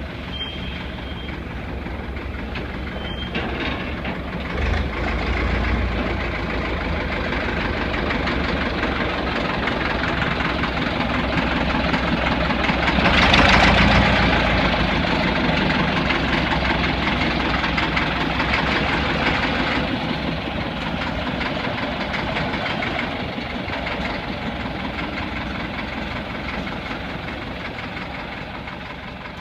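Diesel engine of a small narrow-gauge yard locomotive running steadily as it pushes a boilerless steam locomotive chassis down the track. It grows louder to a peak about halfway through as the engine hood passes close by, then slowly fades.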